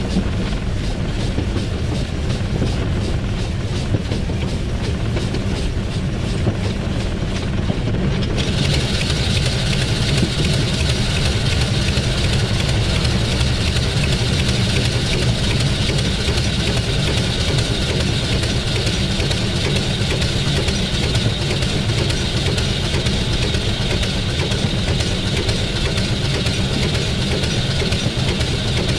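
Running noise of the 1910 Swedish SJ E2 steam locomotive heard from inside its cab under way, wheels running on the rails. About eight seconds in a steady hiss comes in abruptly and stays.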